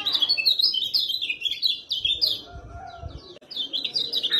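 Kecial kuning (a white-eye) singing a fast run of high, sharp chirps and twitters, packed closely together, with a brief break a little after three seconds.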